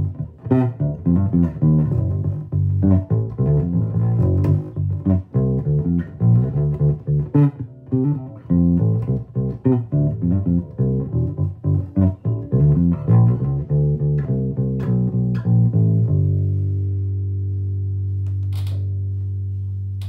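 Electric bass guitar played through a Fender Bassman 100 solid-state amp, testing it after its input jack and gain pot were replaced: a run of quick plucked notes, then a final note left ringing for the last four seconds.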